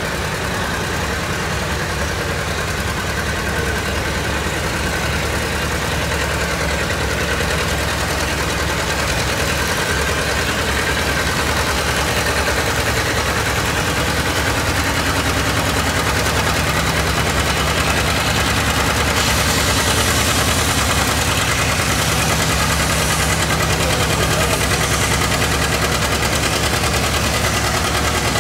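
John Deere two-cylinder tractor engine running under load as it pulls a weight-transfer sled, with a steady, even low beat that grows somewhat louder partway through.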